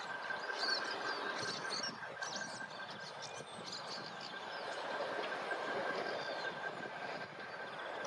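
Steady background rumble of distant traffic with a thin high whine held throughout, and faint short chirps of small birds now and then.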